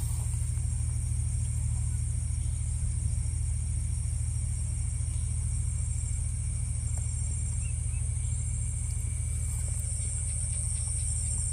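Night insects, crickets or similar, keeping up a continuous high-pitched chorus with short repeating trills, over a steady low rumble.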